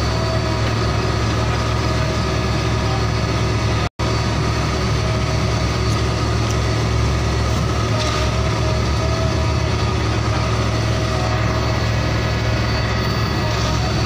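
Heavy truck engine idling steadily, a recorded engine sound rather than anything from the toys. The sound cuts out completely for an instant about four seconds in, then carries on unchanged.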